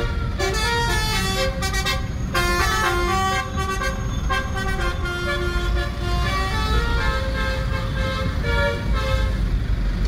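A tour bus's telolet horn playing a tune: a quick melody of many short horn notes, with a brief break about two seconds in, the notes dying away near the end. Low traffic and engine rumble runs underneath.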